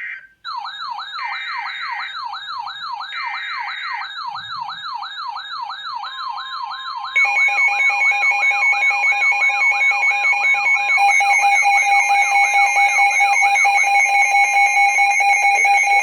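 Emergency Alert System tones on a NOAA Weather Radio broadcast. Two short buzzing SAME data bursts in the first four seconds under a fast warbling siren-like alert tone that rises and falls about three times a second. About seven seconds in, a louder steady attention tone joins and holds to the end.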